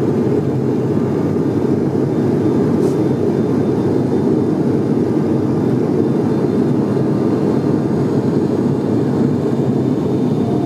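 Steady drone of an ATR 72-600's twin turboprop engines and propellers heard from inside the passenger cabin during the climb after takeoff, loud and unchanging and heaviest in the low range.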